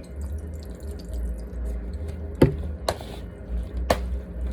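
Chopped salad vegetables being stirred in a dressing with a spoon: wet sloshing, with three sharp knocks of the spoon against the bowl in the second half.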